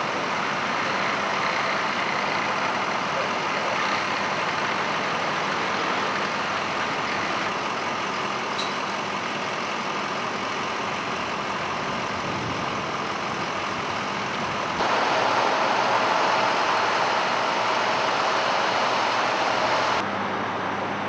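Steady drone of running engines. About fifteen seconds in it grows louder, with a steady whine, for about five seconds, then drops back.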